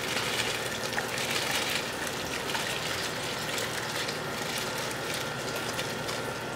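Soaked rice being poured into a large pot of boiling water, a steady watery hiss and patter of grains splashing in over the bubbling boil, a little louder in the first two seconds.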